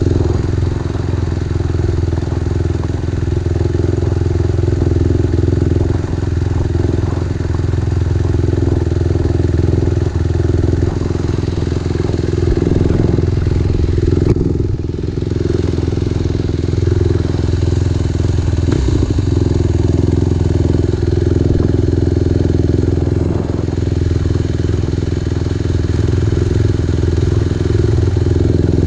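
Dirt bike engine running steadily while riding, easing off briefly about halfway through.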